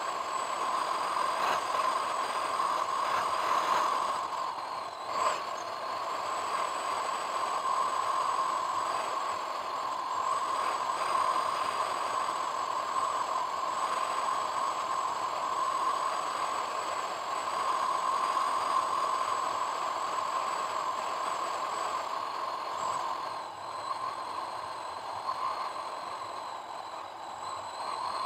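Car driving along a paved road, recorded from inside: steady road and engine noise, with one brief knock about five seconds in.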